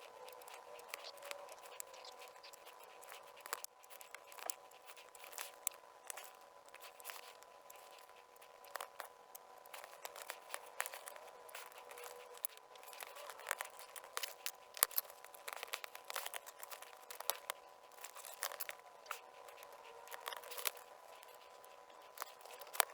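Faint, scattered clicks, taps and crinkles of hands working on a laptop's plastic keyboard deck and its parts, with a faint steady hum under them.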